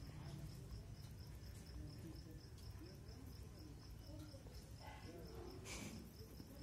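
Faint, steady chirping of a cricket, quick evenly spaced high pulses, about five a second. A short hiss comes near the end.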